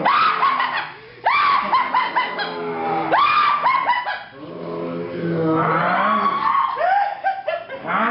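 People screaming and shrieking in high-pitched bursts, several short falling yelps in quick succession, again and again.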